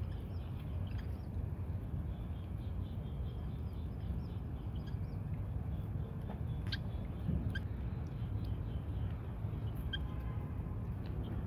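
Cats and kittens feeding, with a few short, high squeaks from the kittens over a steady low background hum.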